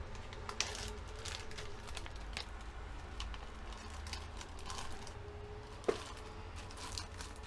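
Light, irregular clicks and taps of mug-cake batter being worked in a mug, with two sharper knocks about half a second in and near six seconds, over a low steady hum.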